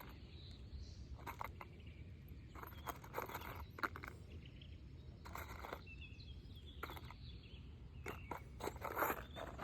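Intermittent short scrapes and crunches of asphalt shingles being handled and worked on a roof, over a low steady background rumble.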